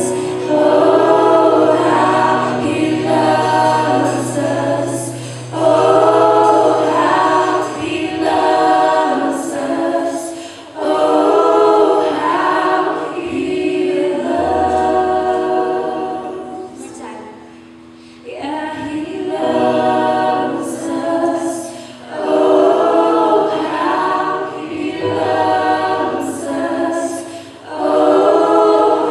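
Worship band performing a song: several voices singing together over guitars, bass and drums, with a brief quieter lull a little past halfway.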